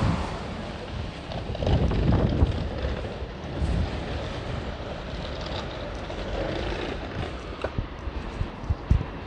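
Street ambience with passing traffic and wind on the microphone: a vehicle fades away in the first second and another passes about two seconds in, with a few soft knocks near the end.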